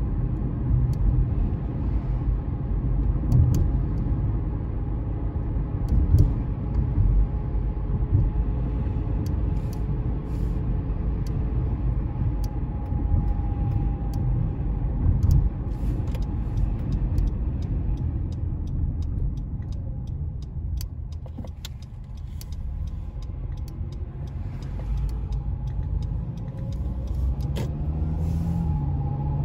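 Honda CR-V on the move, heard as a steady low rumble of road and tyre noise from inside the car. The rumble eases for a few seconds about twenty seconds in, and a rising engine note comes in near the end.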